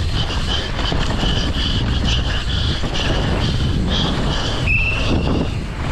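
Downhill mountain bike ridden flat out: a steady loud rush of wind on the microphone and tyres rumbling over dirt and rock, with the bike rattling, and a short high squeal near the end.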